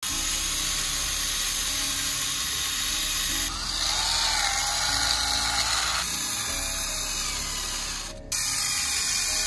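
Small electric gear motors of homemade RC toy tractors whirring steadily as the tractors drive loaded trolleys through mud. The sound changes abruptly about three and a half, six and eight seconds in.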